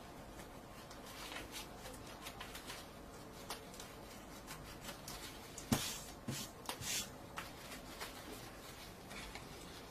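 A yellow postal envelope being opened and handled: light, irregular crinkling and rustling of the packaging, with a few louder crackles about six to seven seconds in.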